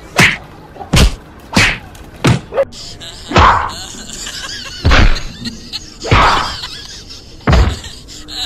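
A series of loud knocks and thumps, about eight at uneven intervals of roughly a second, as a large woven bamboo basket is dropped over a dog and then bangs and tumbles along the dirt while the dog runs off underneath it.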